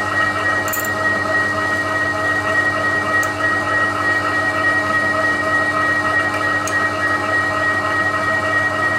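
TOS milling machine running steadily, its geared head giving off a constant whine made of several fixed tones, with a few faint light ticks.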